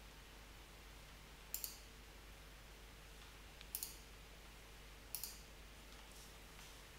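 Computer mouse button clicking three times, each click a quick pair of ticks, over a faint steady hum.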